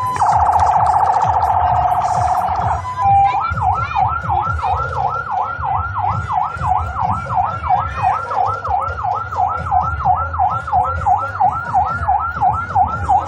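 Electronic siren sounding right after the countdown, signalling the start of the parade. It warbles rapidly for about three seconds, steps briefly between two notes, then switches to a yelp sweeping up and down about three times a second, over a low rumble.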